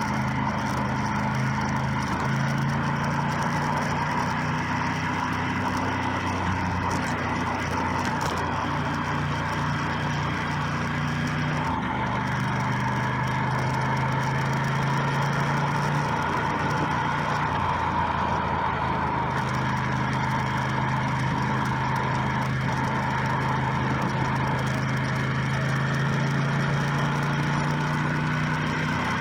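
Motorcycle engine running while riding along, with steady road and wind noise; the engine note drops about twelve seconds in and picks up again a few seconds later.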